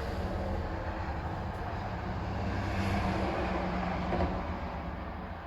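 A low, steady rumble with a faint hum, swelling a little in the middle and easing off near the end.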